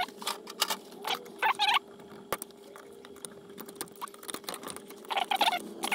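Screwdriver levering at an intake air heater insert: metal squeaking and scraping in short bursts, with scattered sharp clicks, as a piece is prised free.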